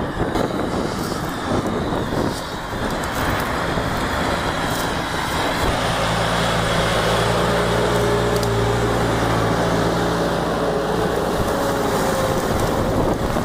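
Tümosan tractor's diesel engine running steadily under load while pulling a spring-tine cultivator, over a constant rushing noise; the engine hum comes through more strongly from about six seconds in as the tractor draws near.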